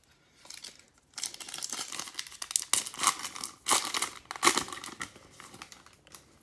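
Foil wrapper of a Panini Revolution basketball card pack crinkling and tearing as it is pulled open by hand, starting about a second in with several louder rips.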